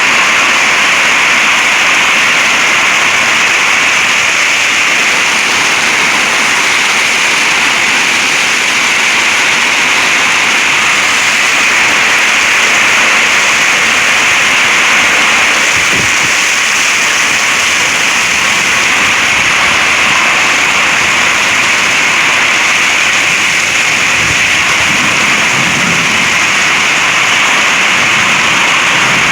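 Heavy thunderstorm rain pouring down in a loud, steady hiss.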